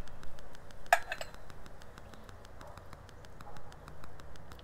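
Ribs being sauced with a basting brush from a metal sauce cup: one sharp clink about a second in, then faint light dabbing and small ticks over a low steady hum.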